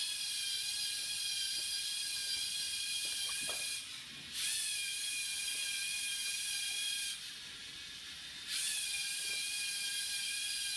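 Lego Mindstorms EV3 tracker robot's motors running with a steady high-pitched whine, cutting out twice (briefly about four seconds in, then for about a second and a half) and starting again each time with a slight rise in pitch.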